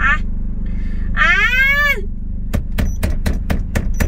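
Hands slapping a leather-wrapped steering wheel in a rapid flurry of about a dozen smacks, roughly six a second, starting about halfway through, over the steady idle of a Peugeot 206 CC's engine. Before the slaps comes a long exasperated vocal cry that rises and falls.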